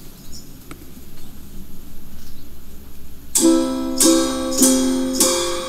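Low steady hiss, then about halfway through a ukulele starts strumming chords: four sharp strums about 0.6 s apart, each chord ringing on.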